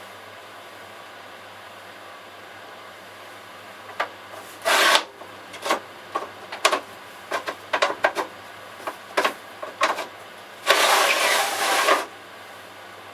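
Handling noises on a work surface: a brief scrape about four and a half seconds in, then a run of short knocks and clicks, and a longer rasping scrape lasting about a second near the end.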